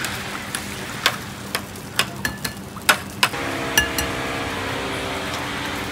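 Eggs being cracked one after another on the rim of a porcelain bowl: a run of sharp taps, roughly two a second. A steady low hum comes in about halfway through.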